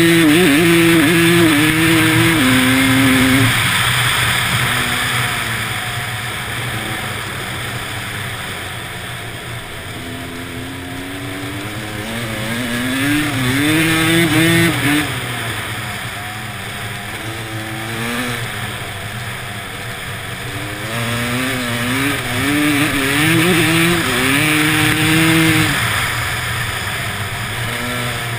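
A vehicle engine at speed on an ice track, revving up in short climbs, shifting and easing off several times. The revs are highest near the start, around halfway and again near the end, over a steady hiss of tyres and wind.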